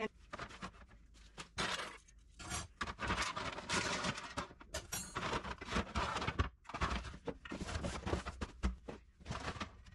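Kitchenware being handled in a cabinet: baking trays and cutting boards scraping and clattering against the shelf, and boxes and packets rustling as they are lifted out, in an irregular run of knocks and scrapes.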